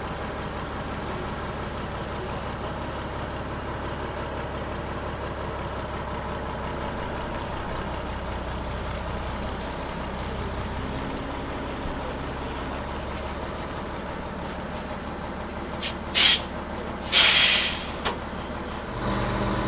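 Heavy truck engine running steadily, with two short, loud bursts of air hiss near the end, like air brakes being released; the engine note strengthens just before the end.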